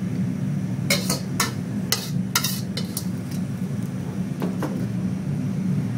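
Utensils clinking and scraping against a serving dish as food is plated: a handful of sharp clinks, most in the first half, over a steady low hum.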